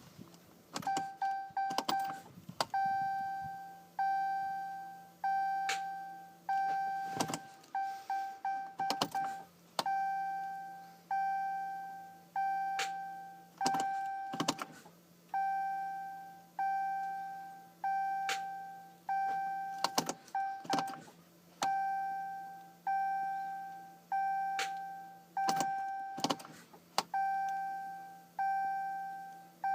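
Dashboard warning chime of a Ram EcoDiesel pickup repeating about once a second, each chime a single bell-like tone that fades away. Scattered sharp clicks and a steady low hum run underneath.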